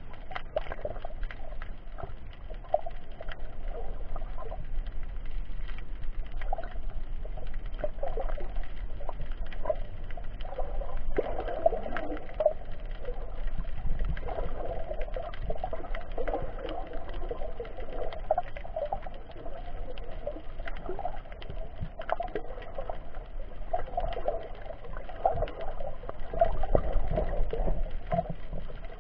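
Muffled underwater noise heard through an action camera's sealed waterproof case: a steady rushing of moving water with scattered small clicks and knocks, growing louder near the end.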